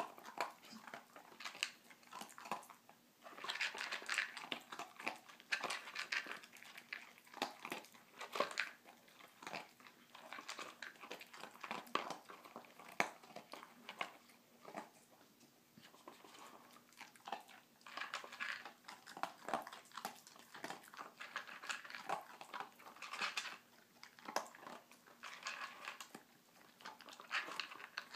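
A Labrador retriever puppy working a plastic puzzle feeder with its nose, the plastic parts clicking and rattling irregularly, with crunching as it chews the kibble it gets out.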